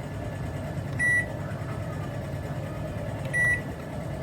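COMFEE' retro-style 800 W microwave oven running with a steady hum, giving two short, high beeps: one about a second in and one near the end.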